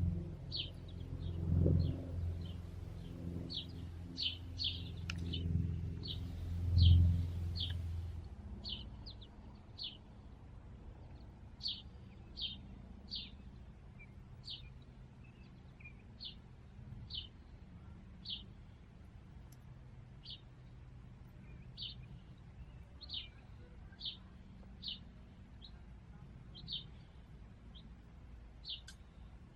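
A songbird repeatedly giving short, high chip notes, about one or two a second, steady through the whole stretch. A low rumble underlies the first eight seconds or so and is loudest about seven seconds in.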